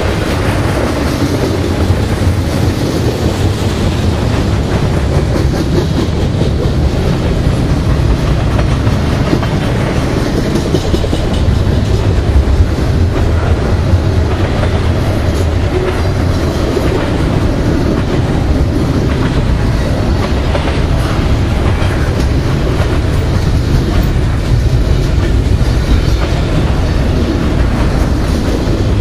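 Double-stack intermodal train's loaded well cars rolling past, a loud steady rumble of steel wheels on rail with scattered clicks as the wheels cross the rail joints.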